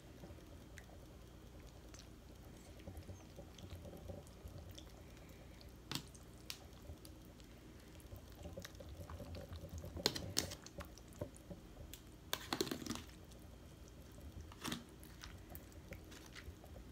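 A fork mixing spaghetti and tomato sauce in a disposable aluminium foil pan: soft wet squishing with scattered clicks and scrapes of the fork against the foil. The loudest of these come about ten seconds in and again a couple of seconds later.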